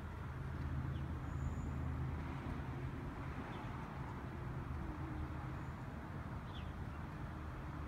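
Steady low rumble of road traffic, a little louder about a second in, with a few faint, short high chirps.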